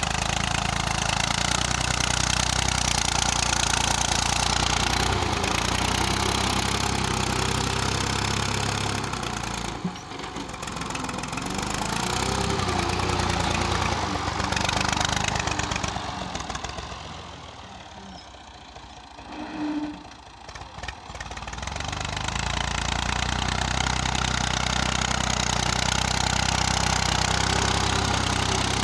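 Massey Ferguson 240 tractor's three-cylinder diesel engine running steadily while pushing soil with a front blade. It falls quieter briefly about ten seconds in and again for several seconds past the middle, then comes back to full strength.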